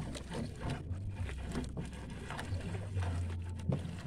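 Low steady hum, with light splashes, drips and small knocks as a wet triple net is hauled in over the side of a small outrigger boat.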